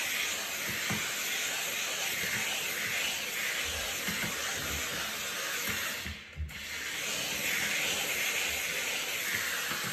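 Steam mop hissing as it is pushed back and forth over a tiled floor, the hiss swelling and fading with each stroke roughly once a second. It dips briefly about six seconds in.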